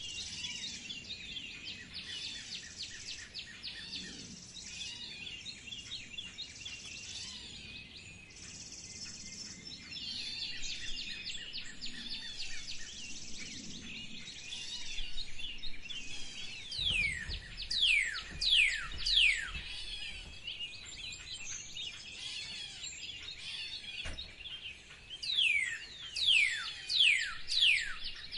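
A chorus of many small birds chirping together. Twice, a louder bird breaks in with a run of four or five quick, sharply down-slurred whistles.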